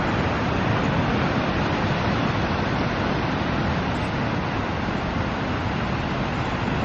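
Ocean surf breaking along the shore, a steady rushing roar with no distinct swells or breaks.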